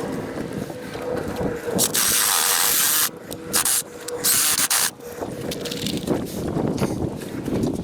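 Cordless power driver running in short bursts, starting and stopping abruptly, as it drives stainless Tapcon concrete screws.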